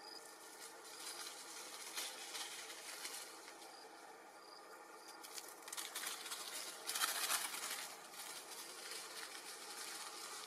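Rustling and scratching in dry leaves and sandy soil as long-tailed macaques move about, in uneven bursts with the loudest about seven seconds in. Faint short high chirps sound now and then in the background.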